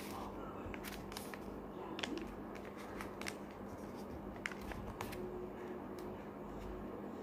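A sheet of paper being folded and creased by hand, making scattered soft crinkles and clicks, with a faint steady hum beneath.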